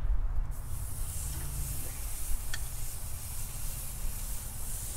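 Bacon-wrapped raccoon meat starting to sizzle on a hot charcoal grill, a steady hiss that sets in about half a second in, over a steady low rumble.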